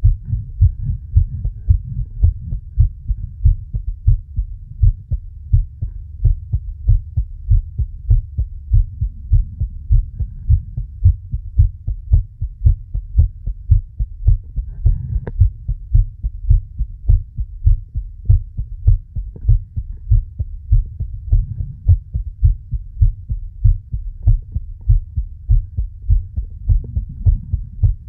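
Human heartbeat recorded close up: a steady, even rhythm of low thumps.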